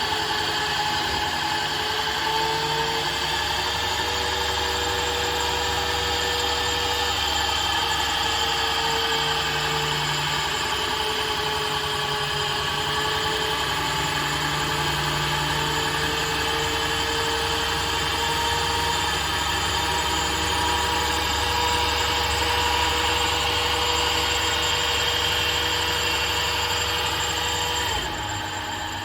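Haas SL-30 CNC lathe running: a steady mechanical whine over a low hum, with a few held tones that waver slightly, dropping away near the end.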